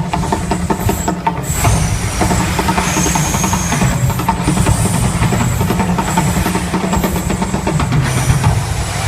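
Continuous deep rumble with crackling through it, from a volcano show's eruption effects.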